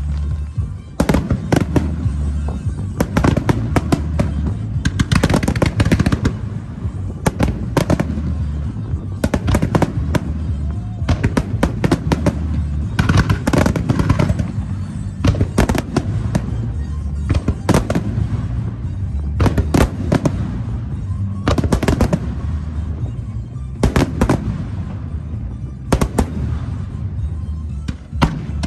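Aerial firework shells bursting in rapid volleys during a grand finale: sharp reports come in dense clusters every second or two, over music.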